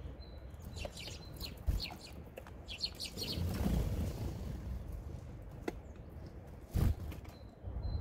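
Small songbirds at a feeder chirping in short high calls, in two clusters in the first half. About seven seconds in there is a brief flutter of wings and a thump as a blue tit lands on the wooden feeder tray.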